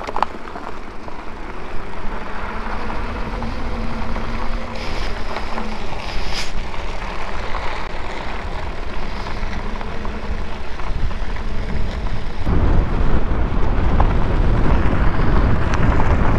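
Wind buffeting the microphone, with road noise, while riding an electric bike. The rumble gets clearly louder about twelve seconds in.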